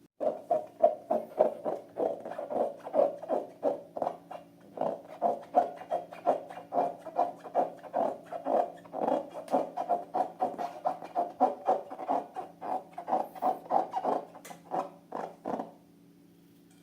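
Slime being worked by hand, a quick run of wet squelches and clicks about three a second that stops shortly before the end.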